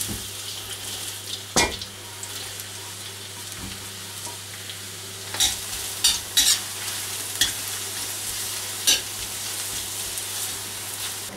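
Onion, garlic and leek sizzling in hot vegetable oil in a cast-iron kazan, a steady hiss, while a metal utensil stirs them, scraping and clicking against the pot about half a dozen times.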